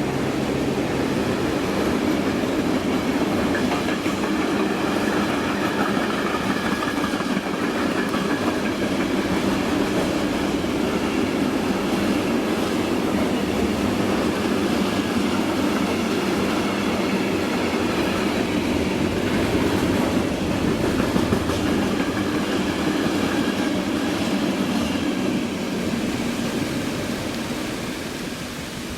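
Freight train rolling past, its wagons' wheels clattering over the rail joints. A steady low engine tone drops away in the first second, and the train noise fades away over the last few seconds.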